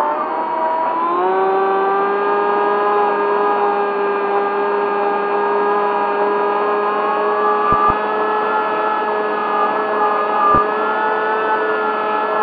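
Electric motor and propeller of a Sonic Modell AR Wing flying wing, heard from its onboard camera: a steady whine. Its pitch sags at the start, then the throttle opens about a second in and the pitch holds steady while the plane cruises.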